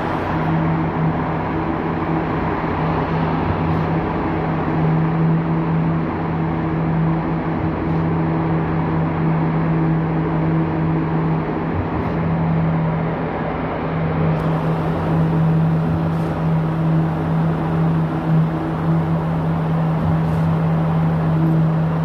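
Engine of concrete-pouring machinery running steadily at one constant speed, a continuous drone.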